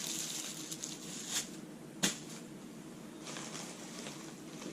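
Soft rustling of packaging being handled, with a few short clicks and taps, the sharpest about two seconds in.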